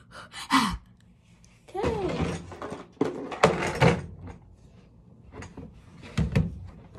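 Scattered thumps and knocks, several in quick succession near the end, with short indistinct voice-like sounds between them.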